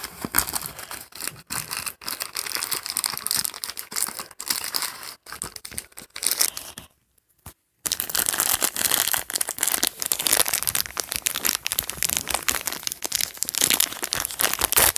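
Packaging of a small collectible toy crinkling and tearing as it is opened by hand: a dense, crackly rustle that stops for about a second around the middle, then carries on.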